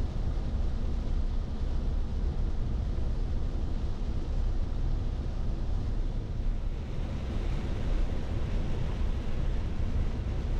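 Steady rain and wind, with a heavy low rumble of wind buffeting the microphone under a softer hiss that grows a little stronger in the second half.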